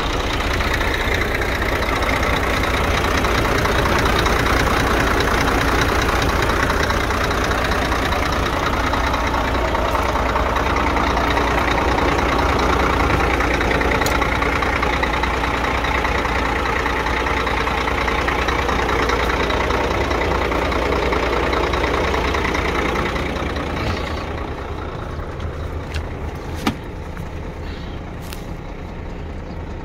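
Scania P114 truck's 380 hp inline-six diesel idling steadily. Near the end it becomes quieter and muffled, heard from inside the cab, with a sharp click.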